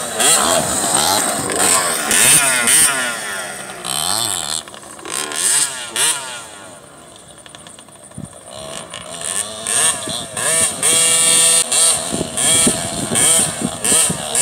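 Small youth dirt bikes, one a Yamaha PW80 two-stroke, revving up and down as they ride the track, the engine pitch rising and falling with each throttle change. The sound dies down around the middle as they move away, then grows loud again near the end.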